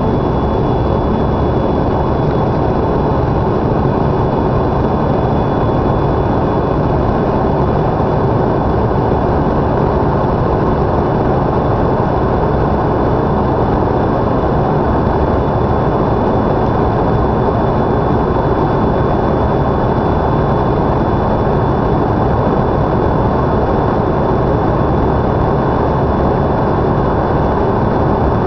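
Steady cabin noise of a Canadair CRJ regional jet in flight, heard from a window seat: a dense, even rush of airflow and the rear-mounted turbofan engines, with a faint steady high whine on top.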